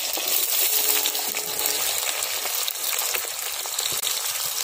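Chopped shallots sizzling as they fry in hot oil in an iron kadai, a steady hiss, with light metallic clinks of a steel plate against the pan as the pieces are pushed in.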